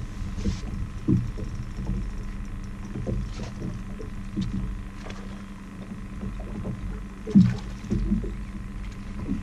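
Fishing boat's motor humming steadily while trolling, with irregular slaps and splashes of water at the hull. A louder splash comes about seven seconds in as the hooked crappie reaches the surface.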